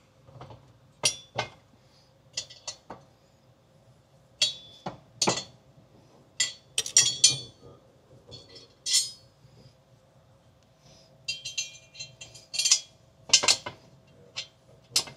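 Hand tools and metal hardware clinking and tapping against metal engine parts: irregular sharp clinks, some in quick clusters and some with a brief ring.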